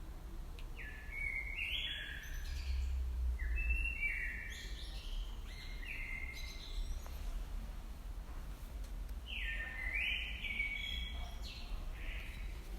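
A songbird singing two phrases of clear whistled notes that step up and down in pitch, the first running several seconds and the second starting about nine seconds in, over a steady low rumble.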